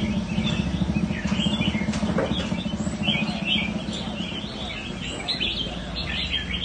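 Several caged songbirds singing at once in quick, overlapping bright phrases, over a steady low hum.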